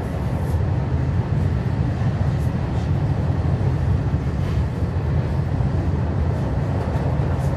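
Steady low rumble inside a moving regional passenger train: wheels running on the rails, with an even level throughout.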